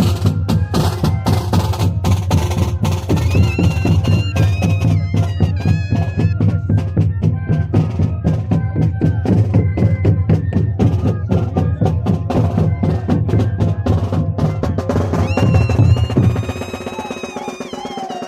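Moseñada band music: a melody on moseño cane flutes over fast, steady drumming. Near the end the drums stop and the flutes carry on more quietly.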